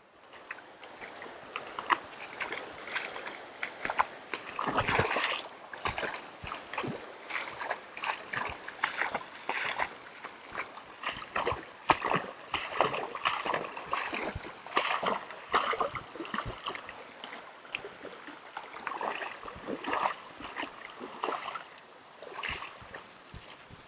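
Water splashing and sloshing in many small, irregular splashes.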